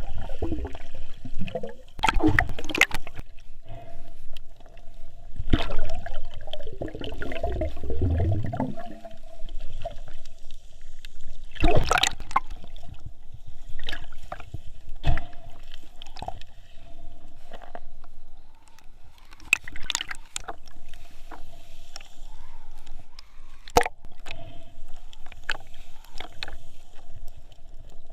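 Seawater gurgling and sloshing around a camera at the surface while snorkeling, with scattered knocks and splashes.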